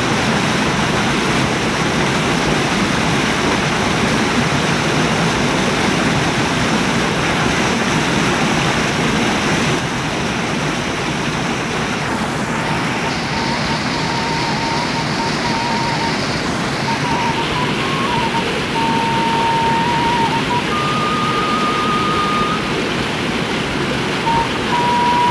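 Steady rush of flowing water, slightly quieter after about ten seconds.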